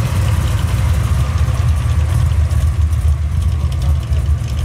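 V8 engine of a classic Chevrolet Chevelle running at a low idle as the car creeps past, a deep, uneven pulse.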